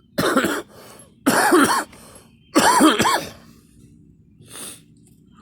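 A person coughing three times, each cough about half a second long and a little over a second apart, then a much fainter short sound about four and a half seconds in.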